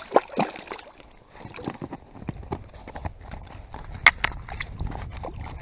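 A hooked brook trout thrashing and splashing at the water's surface beside a float tube: irregular slaps and splashes, with the sharpest splash about four seconds in. A low rumble runs underneath from about two seconds in.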